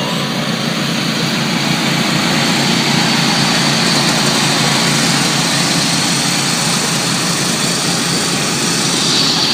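Riding lawn mower engines running steadily and loudly during a race.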